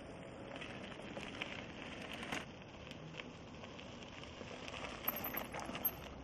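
Mountain bike rolling over a dirt trail: a steady crackling patter of tyres on dirt, with scattered sharp clicks and rattles and a few louder knocks near the end.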